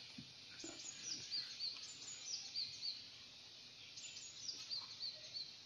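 A songbird singing: high, thin phrases of notes that slide downward and then repeat several times on one pitch, heard twice, over faint background hiss.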